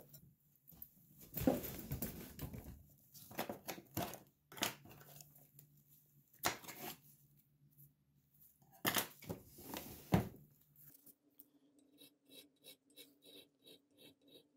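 Needle file rasping on the cast-metal body of a pencil sharpener held in a bench vise: short, even strokes about three a second in the last few seconds. Before that come irregular scrapes and knocks of tools being handled on the workbench.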